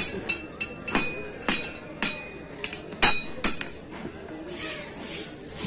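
Blacksmith's hand hammer striking a steel blade on an anvil, about nine ringing blows, roughly two a second. The hammering stops after about three and a half seconds, and a rhythmic whooshing of air into the charcoal forge fire follows, about twice a second.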